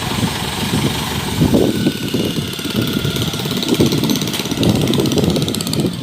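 Kubota DC-105X combine harvester's diesel engine running loudly, its low rumble swelling a few times.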